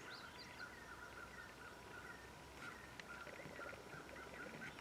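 Faint outdoor ambience with scattered small bird chirps.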